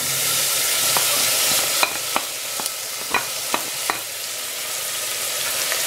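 Grated and chopped onion hitting hot oil and garlic in a pot, setting off a loud sizzle that eases after about two seconds into a steady frying hiss. Several sharp ticks sound through the frying.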